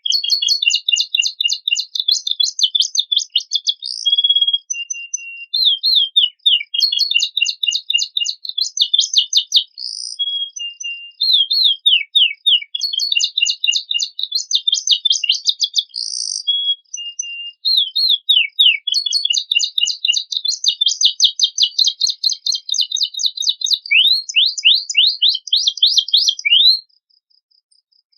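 Domestic canary singing a long, fast song of rapid trills and repeated chirps, in phrases a few seconds long with brief pauses between them, falling silent about a second before the end. The song is packed with learned phrases imitated from other birds.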